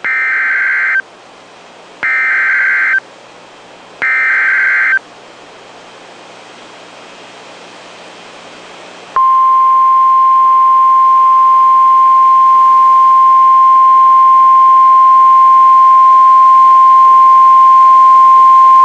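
NOAA Weather Radio Emergency Alert System signal: three one-second bursts of the buzzy, warbling SAME digital header, about a second apart, then after a pause the long steady 1050 Hz warning alarm tone starting about nine seconds in. Together they mark the start of a severe thunderstorm warning broadcast.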